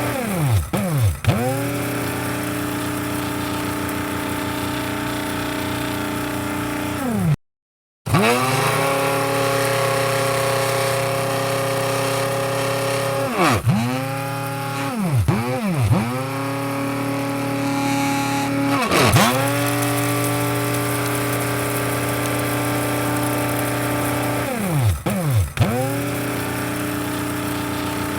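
Electric coffee grinder motor running with a steady whine, its pitch dropping sharply and coming back up several times. The sound cuts out completely for under a second about seven seconds in.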